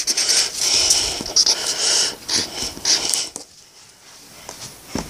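Felt-tip marker scratching and squeaking across paper in quick strokes, stopping about three seconds in.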